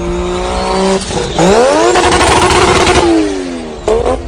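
A car engine revving hard through a loud exhaust: the pitch climbs, dips about a second in, climbs steeply and holds high, then falls away about three seconds in, with another short rev near the end.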